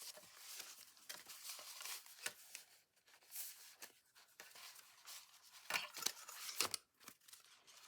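Paper and waxed thread being handled while journal pages are bound: a string of soft rustles, scratches and small clicks, with a few sharper, louder ones about two-thirds of the way through.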